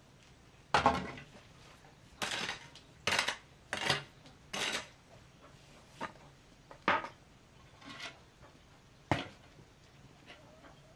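Metal hoe blade striking and scraping stony soil: a series of about nine short, sharp scrapes and clinks at uneven intervals, the last one near the end of the tool work.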